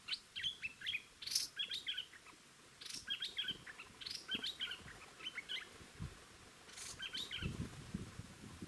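Streak-eared bulbuls chirping in short, quick phrases of several notes, about one phrase a second, with a pause partway through. Soft low rustling can be heard near the end.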